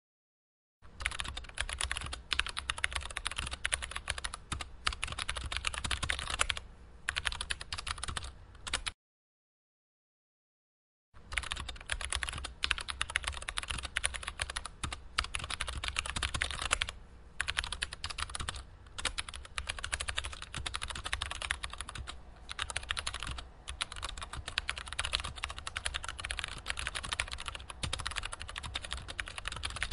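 Rapid, continuous typing on a computer keyboard, with a clean break of about two seconds near a third of the way through before it resumes.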